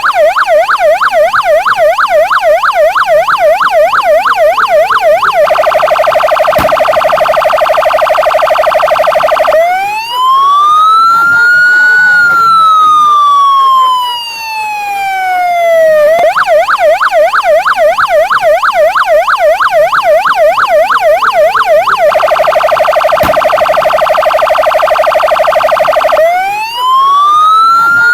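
Santa Fe police patrol car siren cycling through its tones: a fast yelp for about five seconds, then a very rapid trill for about four, then one slow wail rising and falling over about six seconds. The same sequence then starts over.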